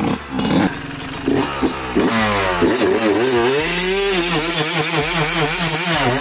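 Yamaha YZ125 single-cylinder two-stroke engine revving hard during a burnout, the rear tyre spinning and smoking. It starts in short choppy blips, then from about two seconds in is held high with its pitch wobbling up and down.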